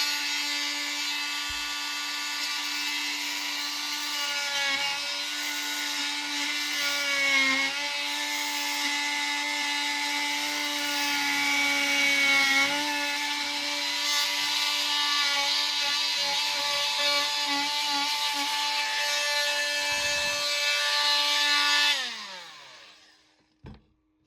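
Oscillating multi-tool fitted with two blades back to back, cutting a channel into a soft aircrete block: a steady motor whine that dips in pitch now and then as the blades bite. It winds down and stops about 22 seconds in, followed by a short knock.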